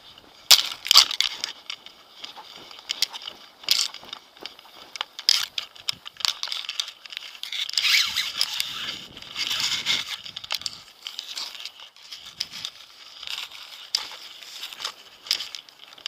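Paraglider wing's nylon fabric and lines rustling and crackling as they are gathered up by hand, in irregular bursts with sharp crinkles, busiest around the middle.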